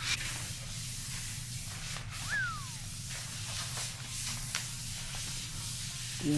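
Low steady hiss over a faint hum, with one short falling whistle-like glide about two seconds in and a few soft clicks.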